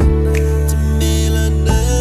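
Music: the song's backing, with sustained bass notes and chords. The bass note changes near the end.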